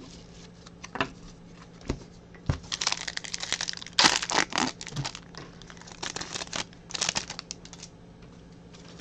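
Foil wrapper of a trading-card pack crinkling and being torn, in crackly bursts after a few light clicks.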